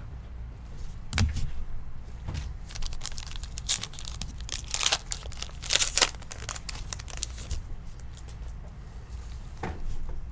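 A trading card pack's wrapper being torn open and crinkled by hand, in a series of short, irregular rustles and crackles, loudest about halfway through.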